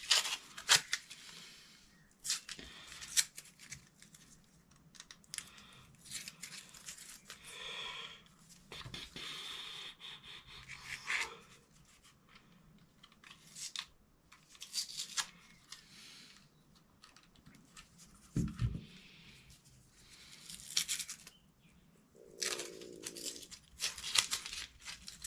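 Irregular handling noises: clicks, taps and short scraping sounds of an antler handle scale being worked off a knife's steel tang.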